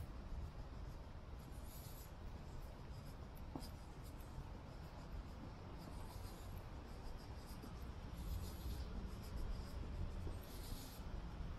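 Quiet street ambience: a steady low rumble with soft scuffing footsteps on pavement at irregular intervals.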